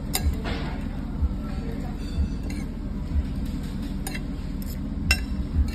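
Metal spoon and fork clinking a few times against a ceramic bowl as a salad is tossed, over background music with a soft, steady beat.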